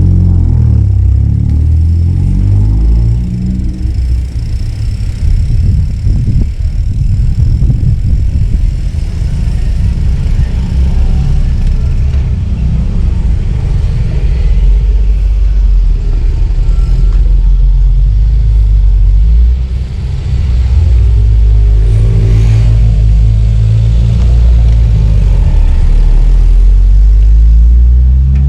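Loud, continuous wind buffeting on a bicycle-mounted camera's microphone while riding, a low rumble that flutters unevenly.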